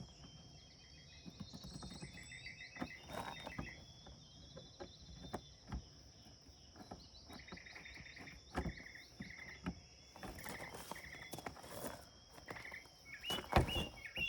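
Insects: a steady high-pitched drone with short runs of rapid chirping, over scattered knocks, the loudest near the end.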